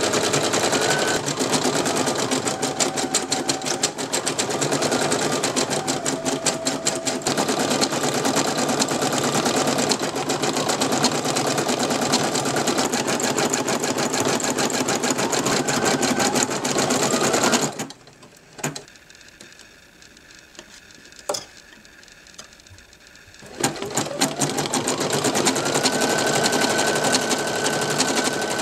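Brother NV2600 embroidery machine stitching at speed, a fast, dense chatter of needle strokes with a steady whine. About two-thirds of the way through it stops for roughly five seconds, with a couple of clicks, then starts again, its whine rising in pitch as it comes back up to speed.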